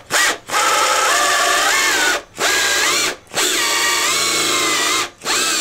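Handheld air drill with a number 17 bit drilling out a rivet in a steel PSL rear trunnion. It runs in several spells broken by four brief stops, and its whine rises and dips in pitch as the bit loads up.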